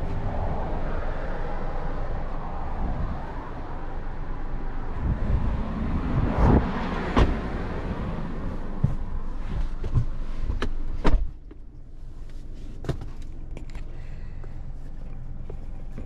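Car doors on a 2022 Mercedes-Benz C-Class clunking and clicking, ending with a door shutting about eleven seconds in. After it shuts, the steady outside vehicle noise drops away to a quieter cabin.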